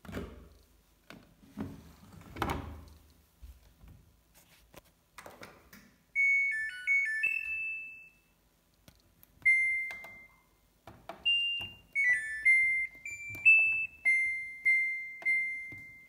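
Samsung washing machine being handled and set: a few thuds and rustles as the detergent drawer is pushed shut, then the machine's short electronic tune of several notes, followed by a string of single beeps as the program dial is turned and buttons are pressed.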